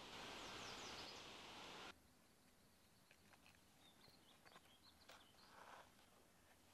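Faint outdoor ambience, a steady hiss with a few short bird chirps, cuts off abruptly about two seconds in. After that come quiet rustles and light clicks of a leather wallet being handled.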